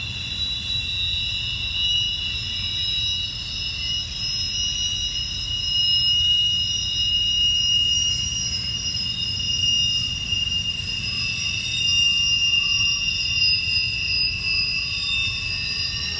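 Wheels of a double-stack container train squealing as the train rounds a curve: several high squeals that hold, waver and shift in pitch, over a steady low rumble of the cars rolling on the rails.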